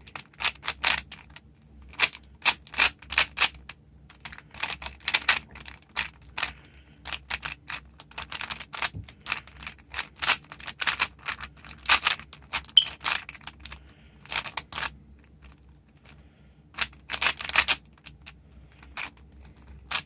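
A 3x3 Rubik's Cube being turned by hand: quick runs of sharp plastic clicks as its layers are rotated, in irregular bursts of moves with short pauses between them.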